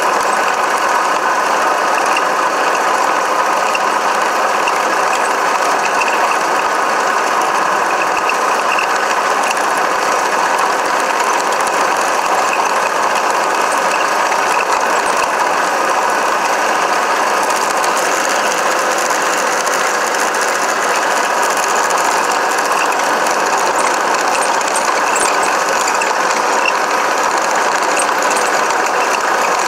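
Steady, dense mechanical rattling and clatter of a vehicle being driven across a rough dirt floor.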